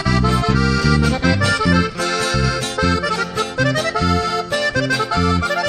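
Instrumental band music led by an accordion with no singing: the accordion plays a quick melody with rising runs over a pulsing bass line.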